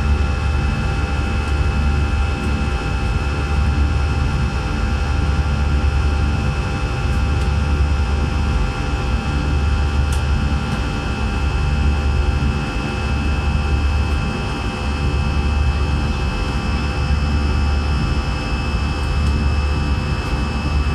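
Steady cabin noise of an Airbus A319 in its climb after takeoff: a deep rumble from the twin jet engines and rushing air, with several steady whining tones above it.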